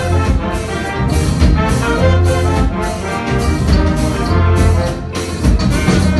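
A live band with a horn section of saxophones, trumpets and trombone playing the tune over bass and drums, with a steady beat.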